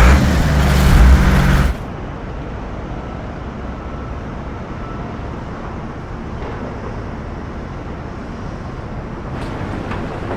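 A loud, low engine-like sound with a steady pitch that cuts off suddenly after about two seconds. It is followed by a steady urban traffic hum.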